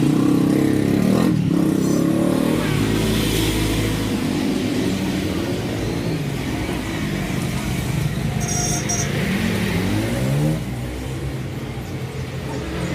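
Motor vehicles running and passing, with engine pitch rising and falling as they rev.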